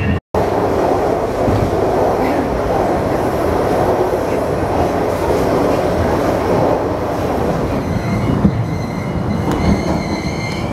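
Miami Metrorail train approaching an elevated station, its rumble on the track building steadily. From about eight seconds in, high wheel squeal joins as it comes in.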